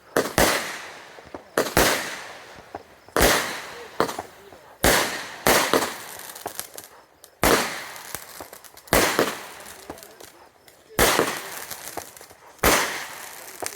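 Consumer fireworks going off in a steady series: about nine sharp bangs, roughly one every one and a half seconds, each trailing away over a second or so.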